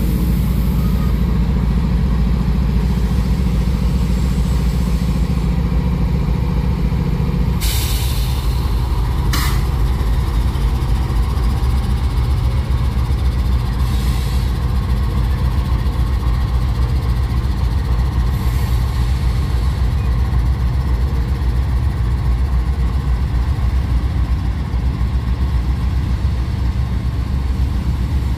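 Norfolk Southern diesel locomotives running steadily beside a passing freight train, a deep engine hum throughout. About eight seconds in the engine note drops, and two short hisses of air come soon after.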